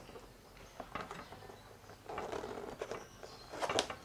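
Plastic wrapping crinkling and rustling while a boxed keyboard is handled, with scattered light clicks and taps. A louder cluster of clicks comes near the end.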